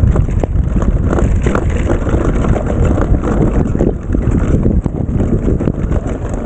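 Mountain bike descending a rough trail at speed: a steady rush of wind buffeting the microphone, with frequent knocks and rattles from the bike over the ground.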